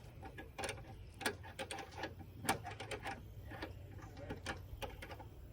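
Hand ratchet clicking in short, uneven runs of sharp ticks as an intake manifold bolt is tightened.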